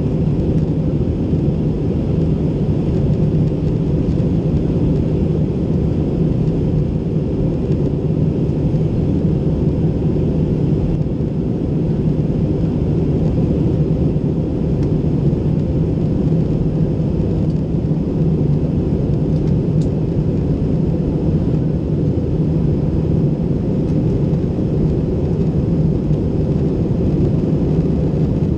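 Steady cabin noise of an Airbus A320 in flight: a constant, deep rush of engine and airflow noise with a steady low hum, heard from a window seat over the wing.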